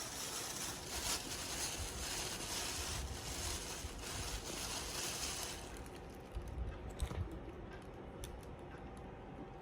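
Close-miked eating: chewing and crunching food, with a dense crackly hiss for the first five seconds or so, then softer chewing with scattered clicks.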